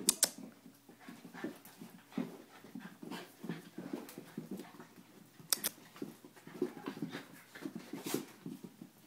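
A schnauzer and an Italian greyhound play-wrestling: dog panting and short low noises in quick, irregular succession, with a few sharp clicks, the loudest right at the start.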